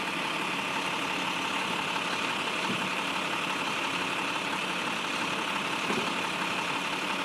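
Steady mechanical hum of an idling engine, unchanging throughout.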